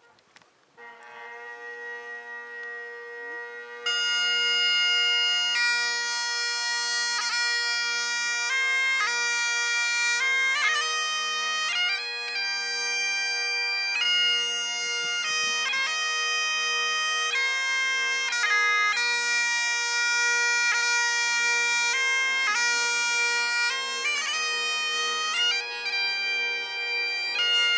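Great Highland bagpipes playing a lament. The drones strike up first as a steady hum, and the chanter's melody comes in about four seconds in over the unbroken drone.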